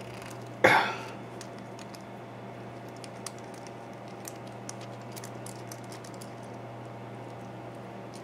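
A padlock being handled and taken apart on a work surface: one sharp clack a little over half a second in, then faint scattered small clicks.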